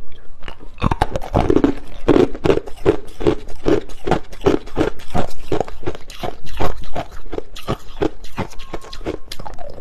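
A person chewing a mouthful of hard, clear crushed ice close to the microphone: dense, sharp crunching and cracking, with heavier chews about two to three times a second.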